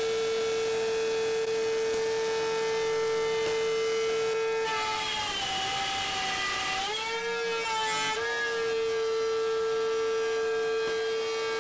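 DeWalt DW611 compact router running at speed in a router table with a steady high whine. Between about 5 and 7 seconds in its pitch sags and wavers as the 1/4-inch bit cuts gear teeth into the plywood blank, then it climbs back to its free-running pitch.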